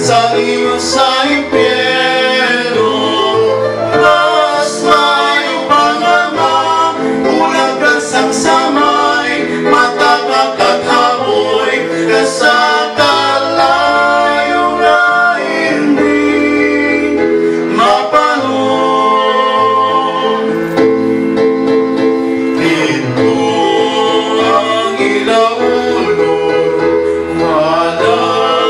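Two men singing a Hiligaynon song through microphones, with instrumental accompaniment underneath.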